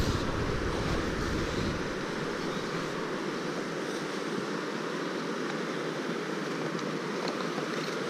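Steady rush of river water flowing over rapids, with wind buffeting the microphone for the first couple of seconds.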